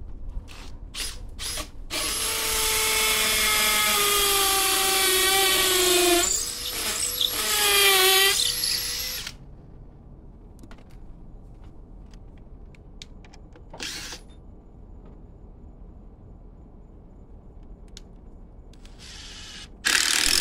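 Makita cordless driver running screws into wood: a motor whine of about four seconds whose pitch sags as the screw bites, a second run of about three seconds, then a brief burst midway and another near the end.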